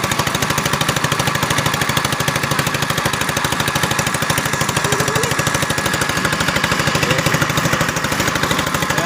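Small engine on an outrigger fishing boat running steadily, with a rapid, even putter.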